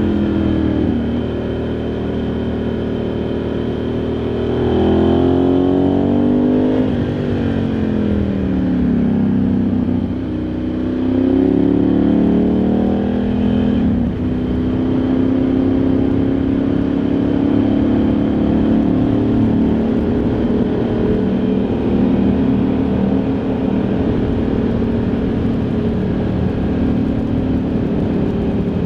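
Ducati Multistrada 1100S air-cooled L-twin engine heard from onboard while riding. The revs rise, fall and rise again through the first half, with a brief dip at about the middle, then the engine holds a steady note for the rest.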